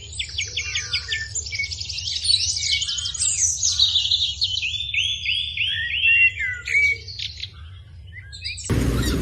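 Small birds chirping and twittering in quick, varied calls, over a low steady hum. Near the end a louder steady rumble cuts in.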